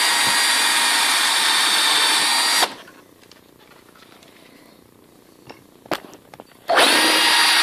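Cordless drill running steadily as it bores into a wooden chair rail toward the old dowel pins, for about two and a half seconds. It stops, a few small clicks follow in the quiet, and the drill starts again near the end.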